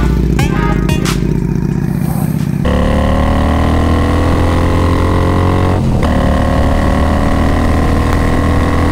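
Victory Gunner's big V-twin, on straight-pipe exhaust, running loud while the motorcycle is ridden. About three seconds in the sound changes to a clearer engine note whose pitch slides with the throttle, with a brief break about six seconds in.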